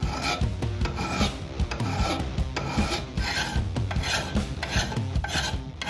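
Hand file rasping back and forth across a forged rebar steel knife blade in repeated strokes, about two a second. The steel is not yet hardened, so the file bites and cuts as it shapes the blade.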